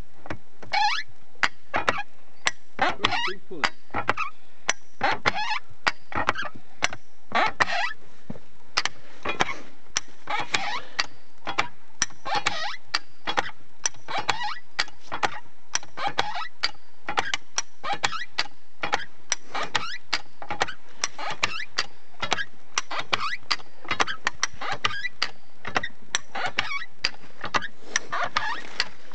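Trewhella monkey grubber hand winch being levered: an irregular run of metallic clicks and clanks from its pawls, drum and rope, a few a second, with some squeaking between.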